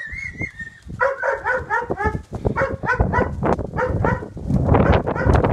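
A dog barking in quick repeated volleys, about three or four barks a second. Gusts of wind buffet the microphone near the end.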